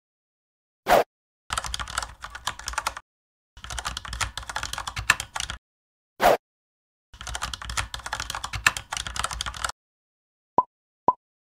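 Computer keyboard typing sound effect: three runs of rapid key clicks, each about two seconds long, with a brief swishing sweep before the first and the third run. Near the end come three short high blips.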